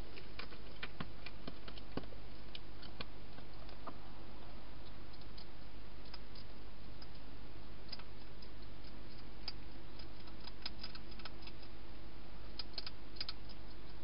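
Wild hedgehog eating in a clear plastic feeding box: irregular quick clicks and crunches, coming in clusters in the first few seconds and again near the end.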